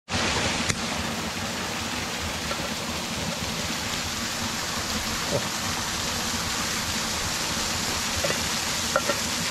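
Steady rush of a small waterfall, with a few faint clicks over it, the sharpest about a second in.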